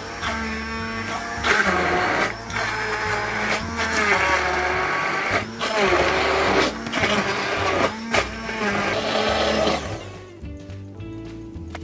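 Electric immersion hand blender whirring through chunks of pineapple and orange in sugar syrup and water, running in pulses with several brief breaks, its pitch wavering as it churns the fruit. It stops about ten seconds in.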